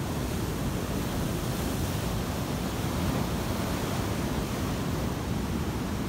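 Pacific Ocean surf breaking and foam washing over the shallows in a steady rush, with wind blowing across the microphone.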